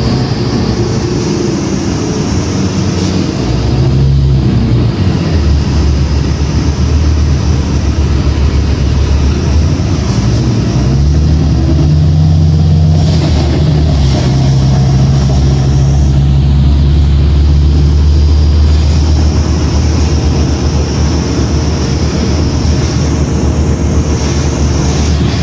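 2006 New Flyer D40LF transit bus with a Cummins ISL diesel engine, heard from inside the bus as it drives: a loud, steady low engine and drivetrain drone whose note changes a few times.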